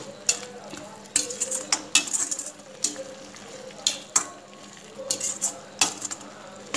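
Metal ladle scraping and clinking against a steel pan at irregular intervals while stirring a thick cauliflower and potato gravy.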